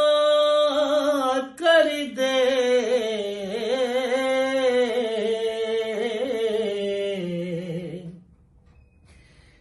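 A man singing a naat unaccompanied, holding long wavering notes that slide from one to the next. The voice stops about eight seconds in, leaving a brief near-silent pause between lines.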